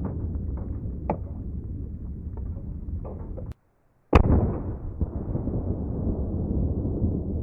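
A single gunshot about four seconds in, a sharp crack with a trailing echo, right after a brief dropout to dead silence, over a steady low rumble.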